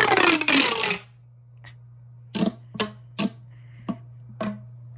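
Fidget toys being played with: a loud sliding, buzzing sound falling in pitch for about a second, then five sharp clicks about half a second apart.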